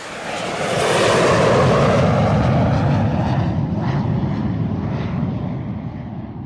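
Jet aircraft passing: a loud rushing engine noise that swells about a second in and then slowly fades.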